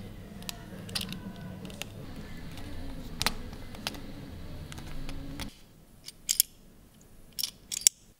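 Small painted metal calendar parts clicking and tapping as they are handled and fitted together by hand, with a few sharper clicks near the end. A low steady hum underneath stops abruptly about five and a half seconds in.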